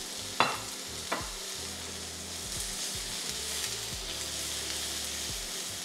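Vegetables and bean sprouts sizzling in a hot frying pan while being stirred with a wooden spoon, with two sharp knocks about half a second and a second in.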